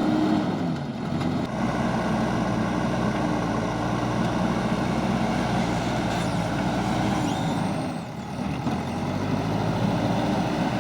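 JCB backhoe loader's diesel engine running steadily. Its revs sag briefly about a second in and again near eight seconds, then pick back up.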